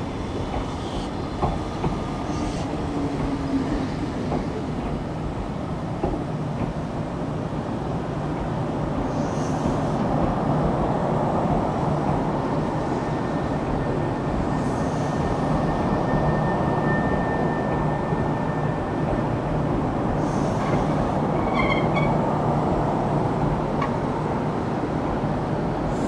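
Meitetsu 1000 series 'Panorama Super' electric train moving past along the platform, a steady running noise of motors and wheels on rail with a low hum, growing louder from about a third of the way in.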